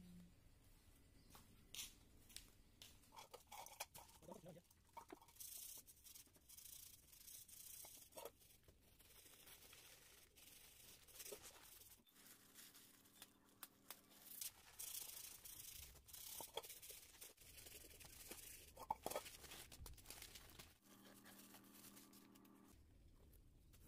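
Faint, irregular rustling and tearing of masking paper and tape being pulled off a freshly painted car's windows.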